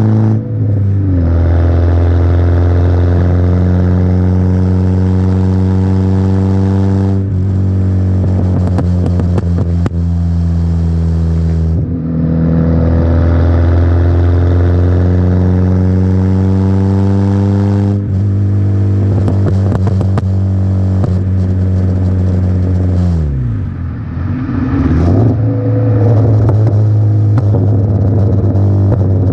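A 1997 Peugeot 106 XR's 1.1-litre four-cylinder petrol engine through a custom exhaust, pulling up through the gears. The revs climb steadily in each gear and drop at four gear changes, then fall sharply and pick up again near the end. Crackling pops from the exhaust come in between.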